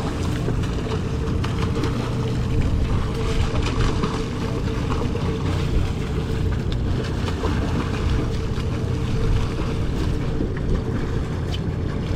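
Sportfishing boat's engine running with a steady drone, with wind and water noise over the deck.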